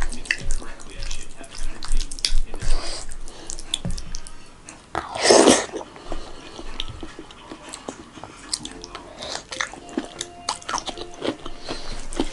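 Close-miked eating sounds: chewing and wet mouth smacks, with fingers squishing and mixing rice and dal in a bowl. About five seconds in there is one louder, hissing burst lasting about half a second.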